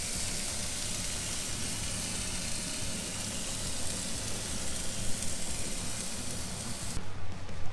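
Pork tenderloins sizzling on the hot grates of a charcoal grill, a steady hiss that cuts off abruptly near the end.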